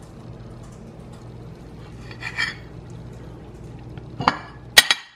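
A metal spoon scooping soft baked casserole out of a ceramic baking dish and setting it on a plate: a soft wet scraping, then two sharp clinks of the spoon near the end, over a low steady hum.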